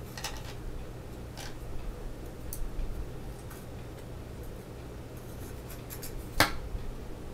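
Light clicks and scratching of fingers handling a small circuit board while fitting and bending a thermistor's wire leads into it, with one sharp click a little over six seconds in.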